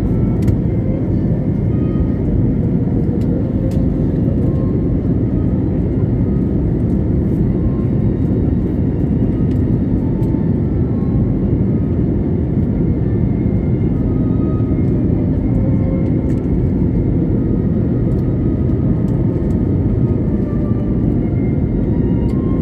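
Airliner cabin noise during the approach: the steady roar of the engines and rushing air, heaviest in the low end and unchanging throughout.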